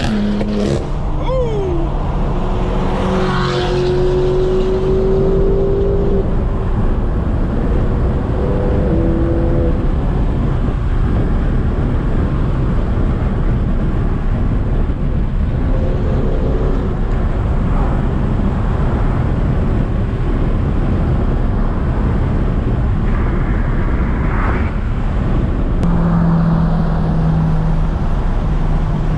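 Car driving at highway speed, heard from the car: a steady engine and exhaust drone over heavy road noise, with a few held and rising engine tones in the first ten seconds and again near the end.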